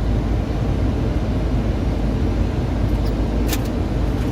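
Steady low rumble of airflow and engine noise inside a Boeing 737-800 cockpit in flight on approach, with one short click about three and a half seconds in.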